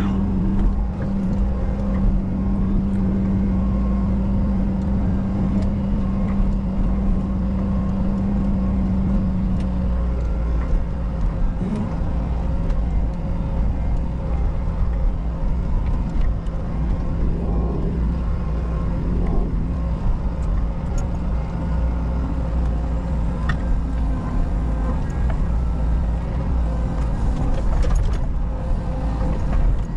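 Menzi Muck M335 walking excavator's diesel engine and hydraulics running steadily under working load, heard from inside the cab as the boom and bucket move. A steady hum over the engine rumble stops about ten seconds in.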